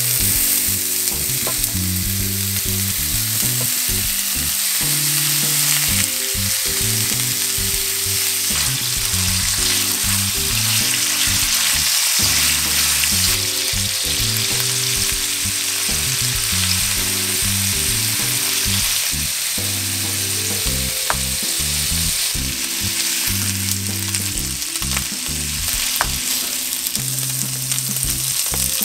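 Thinly sliced pork belly sizzling hard in a nonstick frying pan, the hiss starting abruptly and running on steadily as the fat renders, with a few light clicks and scrapes of stirring.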